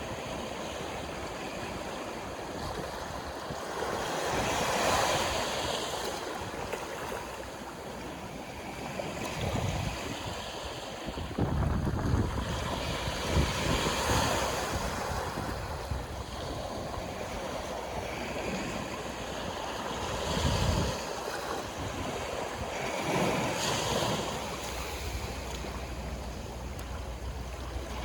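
Sea waves breaking and washing in, swelling about every nine seconds over a steady surf hiss, with gusts of wind buffeting the microphone in low rumbles.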